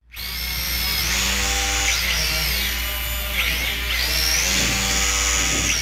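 Toy quadcopter's small electric motors whining as its four propellers spin. The pitch climbs, drops and climbs again as the throttle is worked up and down.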